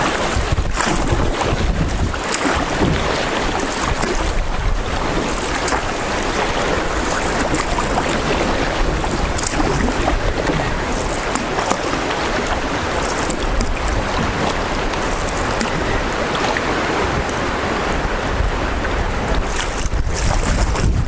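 River current rushing and splashing past a moving canoe, a steady wash of water noise with wind buffeting the microphone.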